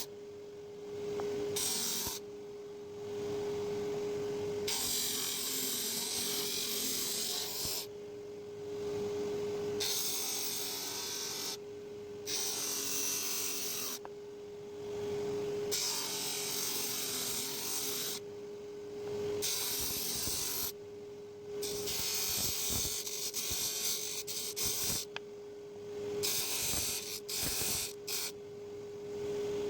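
An electric power tool running with a steady hum while a piece of wood is pressed against it in repeated strokes of a few seconds each, giving a rasping sanding or grinding noise. The strokes get shorter and choppier near the end.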